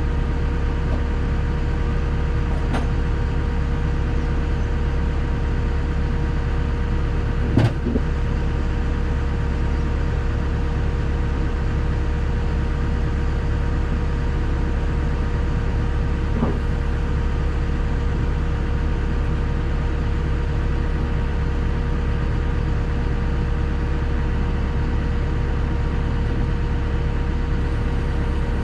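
Cat 313 excavator's diesel engine running steadily, with a single sharp knock about eight seconds in.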